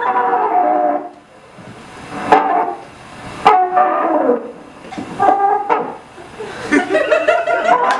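Experimental noise music: wavering, horn-like pitched tones in short phrases broken by gaps, with two sharp clicks about two and a half and three and a half seconds in.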